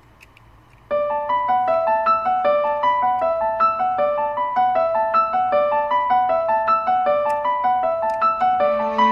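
Background music: after a brief lull, a keyboard instrument starts about a second in, playing a quick, repeating run of notes.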